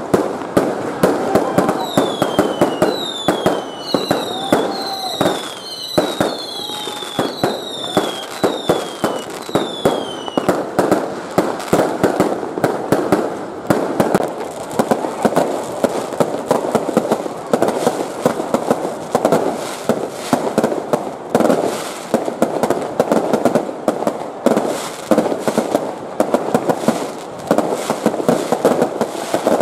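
Fireworks going off in dense, rapid volleys of bangs and crackles. In the first ten seconds there is also a run of high whistles, each falling in pitch, about one a second.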